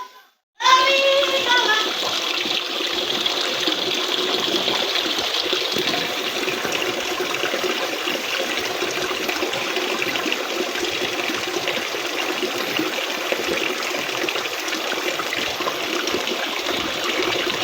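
Steady rushing water of a stream, a constant noisy wash that cuts in after a brief silence at the very start. A voice is heard briefly near its start.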